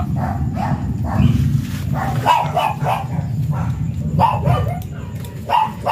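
Dog barking repeatedly, about two to three barks a second, over a steady low hum.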